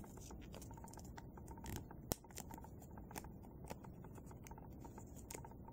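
Faint rustling and small crisp clicks of a square of paper being folded and creased by hand, with one sharper click about two seconds in.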